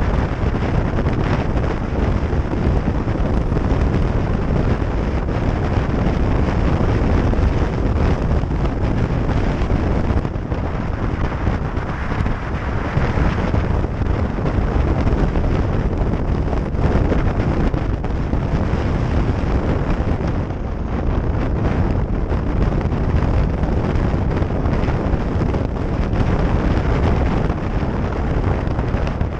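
Steady wind rush over the microphone of a motorcycle riding at highway speed, with the bike's engine and tyre noise under it as a continuous heavy rumble.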